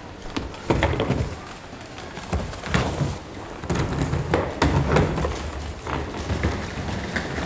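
Footsteps and irregular knocks and thuds of a hard-shell suitcase being lifted and carried, over a low rumble of terminal hall noise.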